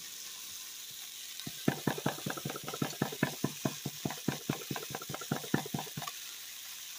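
Chicken strips sizzling steadily in a frying pan. From about a second and a half in until about six seconds in, a rapid run of clicks, several a second, as pepper is added over the chicken.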